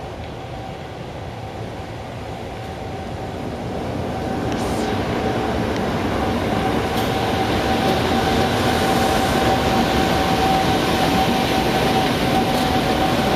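Two JR Freight Class EF510 electric locomotives running light, coupled together, rolling slowly past: the rumble of wheels on rail grows louder over the first few seconds. A steady high-pitched whine comes in about five seconds in and holds as the locomotives pass close by.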